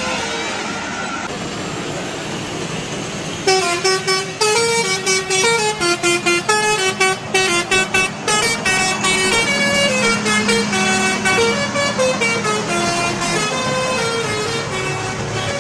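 Multi-tone 'telolet' bus horn playing a fast tune of short, stepped notes, starting about three seconds in and running until near the end, over traffic noise.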